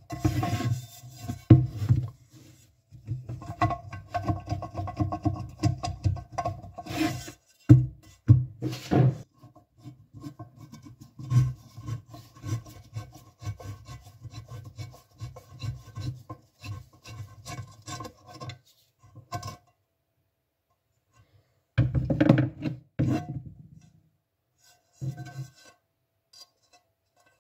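Rapid, gritty scrubbing strokes on a non-stick frying pan, the hand rubbing powder around the pan, in bursts with short pauses and a longer pause a little after two-thirds of the way through.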